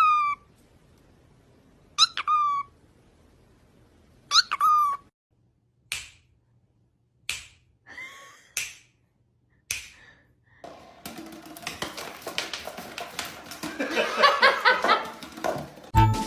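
Three short animal calls about two seconds apart, each falling in pitch, followed by a few sharp clicks about a second apart. From about eleven seconds in, a busier, noisy stretch with pitched sounds takes over.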